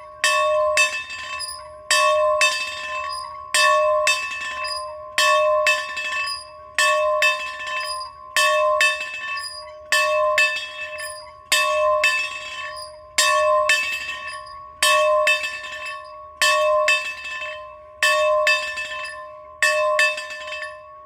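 A bell being rung in a steady rhythm, with a loud clang about every second and a half, each followed by a lighter second strike. The bell's tone rings on between strikes.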